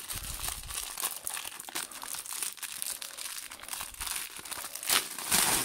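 Clear plastic vacuum-seal bag crinkling and rustling as hands pull it open around a compressed pillow, with a string of small crackles and a louder rustle near the end.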